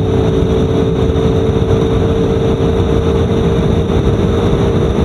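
Ford GT's 5.4-litre V8 held at full throttle in top gear at over 210 mph, heard from inside the cabin. It is a steady drone mixed with heavy wind and road roar, with no gear change.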